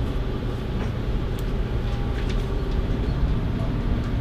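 Steady low rumble and hum of a warship's machinery heard on its bridge, with a few faint clicks.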